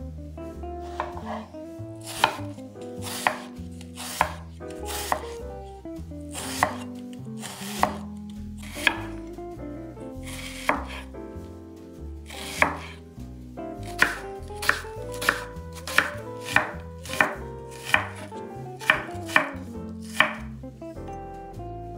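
Kitchen knife chopping food on a cutting board: single sharp cuts about a second apart, quickening to about one and a half a second about two-thirds of the way through, over quiet background music.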